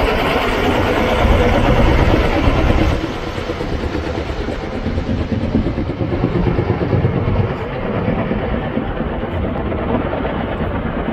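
Helicopter engine and rotor running steadily, the sound dropping a little after about three seconds and growing duller as its higher part fades away.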